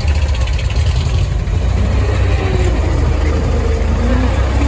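Truck engine running steadily, a deep, even low-pitched sound, with faint tones rising and falling a little in the second half.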